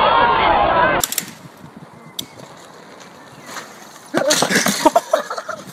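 A crowd shouting and cheering, cut off abruptly about a second in, followed by a few seconds of faint hiss. About four seconds in come shouting voices and sharp knocks.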